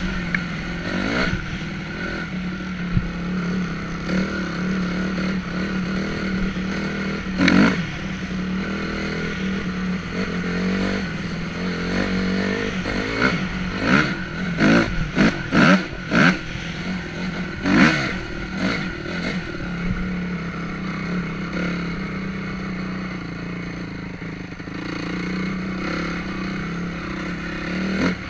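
Honda CRF250R four-stroke single-cylinder dirt bike engine running under throttle while riding, with bursts of sharp clatter and knocks, most of them past the middle, as the bike crosses ruts and bumps.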